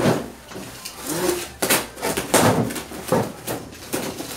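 A cardboard shipping box being torn open: packing tape ripped off and the flaps pulled back, heard as a series of short rips and rustles.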